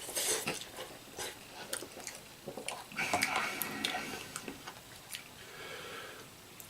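A person eating spicy ramen: irregular slurps, breaths and small clicks, with the busiest stretch about three seconds in.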